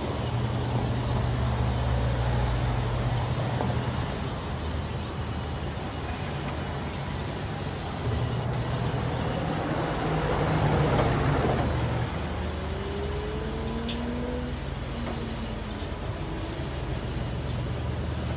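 Sawmill band saw running with a steady low hum. It gets louder twice, about a second in and again about eight seconds in, as logs are fed through the blade.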